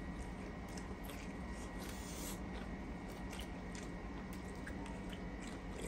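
Close-miked chewing of two people eating with their hands, with scattered small mouth and finger clicks over a faint steady background hum.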